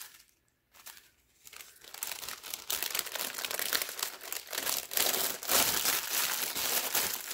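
Clear plastic bag crinkling as it is handled, with a few small clicks at first, then continuous rustling from about a second and a half in.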